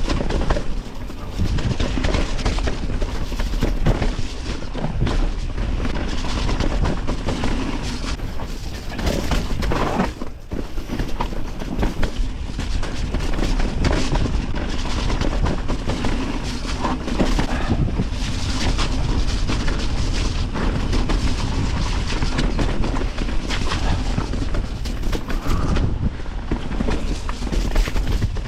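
Mountain bike ridden down a rough trail: tyres rolling over roots and rocks, with the bike clattering in frequent knocks and rattles over steady wind noise on the camera microphone.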